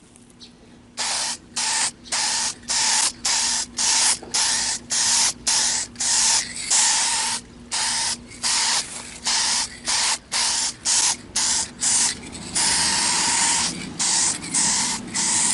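Aerosol spray can of gloss black enamel paint hissing in many short bursts, about two a second, with one longer spray near the end, as light coats go onto a plastic mirror cover.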